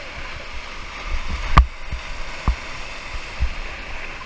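Whitewater river rapids rushing steadily, with a few dull thumps on top, the loudest about a second and a half in.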